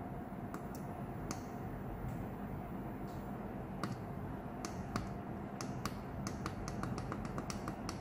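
Push button on a 3Life USB air humidifier clicking as it is pressed again and again to switch its night light: a few scattered clicks, then quicker ones, about three a second, in the second half.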